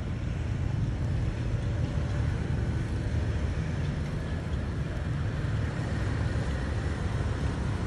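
Steady outdoor city background: an even low rumble with no distinct events.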